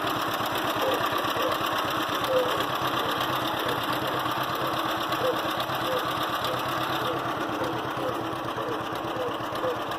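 Old John Deere two-cylinder tractor engine running at idle, its beat steady and even.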